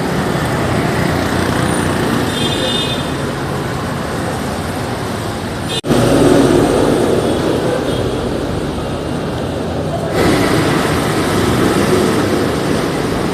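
Urban road traffic: a continuous rumble of vehicles moving past, with a brief high whine about two and a half seconds in. A sharp dropout about six seconds in is followed by louder traffic, and the level jumps again near ten seconds.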